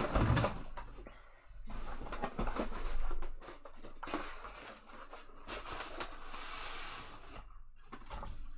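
A stack of paper trading cards being handled and restacked: cards slide and rustle against one another, with light taps and clicks and a low bump at the start.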